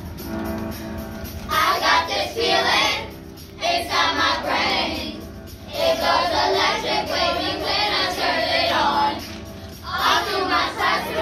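A group of children singing together over instrumental backing music, in sung phrases broken by short pauses; the singing comes in about a second and a half in.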